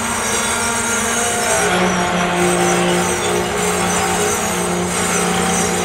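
Loaded covered hopper cars of a potash freight train rolling past: a steady rumble of steel wheels on rail with thin, steady squealing tones from the wheels.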